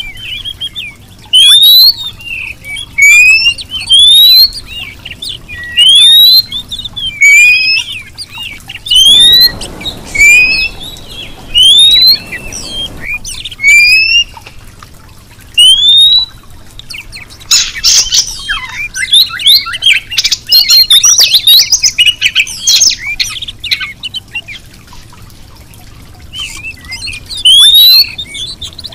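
Female oriental magpie-robin (kacer) calling: loud short rising whistles repeated about every one to two seconds, with a busier stretch of quick twittering chatter in the middle. A female's call to males, used as a lure to set male magpie-robins singing.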